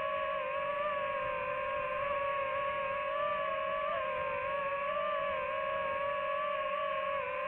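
DJI FPV drone's motors and propellers whining at a steady pitch that wavers slightly as the throttle changes.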